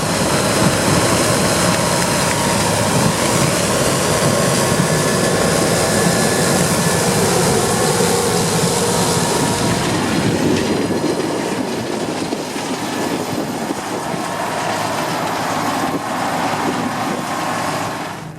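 Case Axial Flow 5130 combine with a Geringhoff corn header running while harvesting corn: a loud, dense mechanical clatter and rush that eases a little after about ten seconds.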